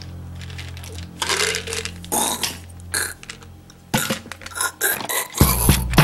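Tablets rattling out of a plastic pill bottle into the mouth, with short clicking rattles and a brief throaty noise about a second in, over a low steady background music drone. A louder music track with a beat comes in near the end.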